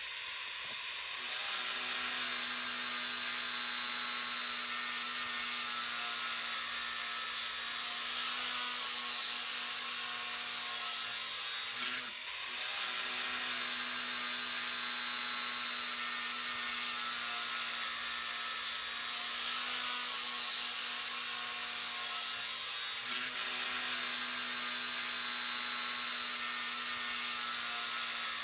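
Cordless DeWalt angle grinder cutting through steel reinforcing mesh: a steady high grinding hiss over a constant motor whine, with a short dip about twelve seconds in.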